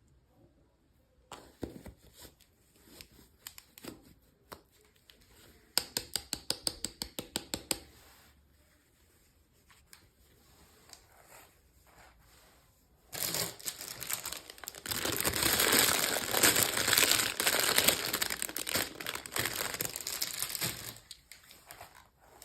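Packaging being handled and torn open during an unboxing. Scattered light clicks come first, then a rapid run of sharp ticks about six seconds in. Near the middle a long stretch of loud crinkling starts and runs for about eight seconds.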